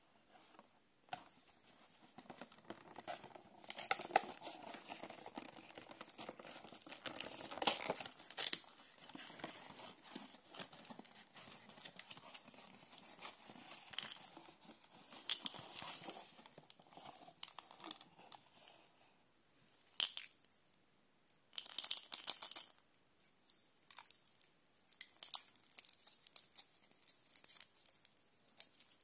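A cardboard Easter egg box being opened and handled: card flaps and the inner card tearing, scraping and rustling in irregular bursts with sharp clicks. There is also the crinkle of the egg's thin foil wrapper as it is pulled out and turned in the hands.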